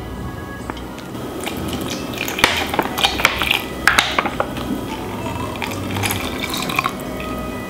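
Clicks and taps of a spoon against a plastic blender cup, then the crinkle of a plastic juice pouch as apple or pear juice is poured into the cup; the sharpest clicks bunch together around the middle.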